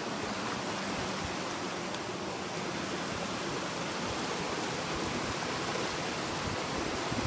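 Mountain stream rushing over rocks, a steady even rush of water.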